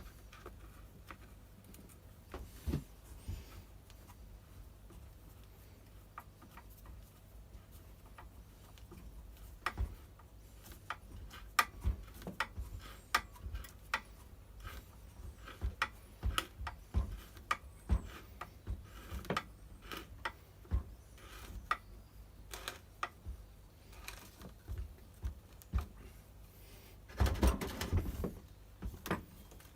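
Scattered clicks, taps and knocks of hand tools and plastic strimmer housing parts being handled while a cover is fitted and screwed on, with a busier scraping, rattling stretch near the end.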